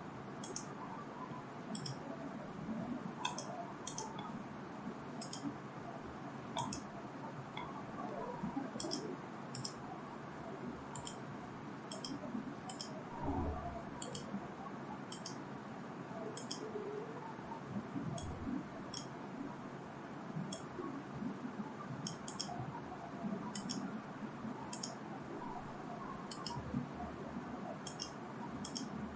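Computer mouse clicking, short sharp single clicks and quick pairs at about one a second, as cable connections are drawn between devices in network simulation software.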